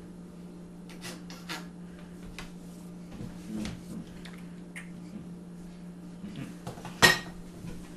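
Scattered light clinks and knocks of bowls and utensils being handled on a counter, with one louder clink that rings briefly about seven seconds in.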